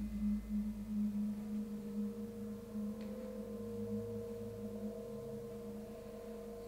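Steady held tones: a low hum, joined about a second and a half in by a higher ringing tone, with one faint click about three seconds in.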